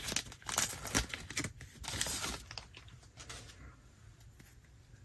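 Trading card pack wrapper being torn open and crinkled, a quick run of crackles for about the first two and a half seconds, then only faint rustles and ticks.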